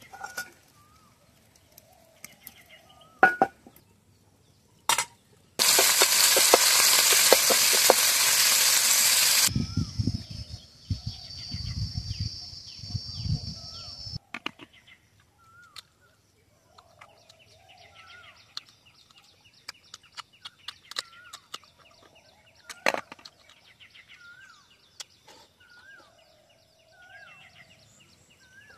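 A few sharp knocks, then a loud hissing sizzle of prawns frying in hot oil for about four seconds, then a quieter sizzle with low thuds. After that a bird calls over and over with a short rising-and-falling note, about once a second, with other birds chirping.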